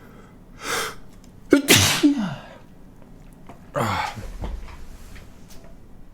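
A man sneezing: a quick intake of breath, then a loud, sharp sneeze about a second and a half in, and a second, breathier sneeze about four seconds in.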